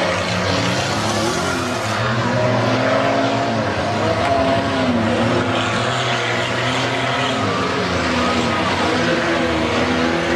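Several race cars' engines running hard on a dirt track, a few engine notes overlapping, their pitch rising and falling as the drivers accelerate and ease off.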